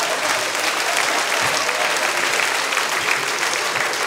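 Audience applauding a punchline: steady clapping from a full house.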